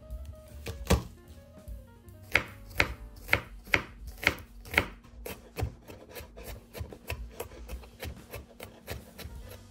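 Kitchen knife chopping garlic on a bamboo cutting board: a run of firm knocks about two a second, then quicker, lighter chopping as the garlic is minced.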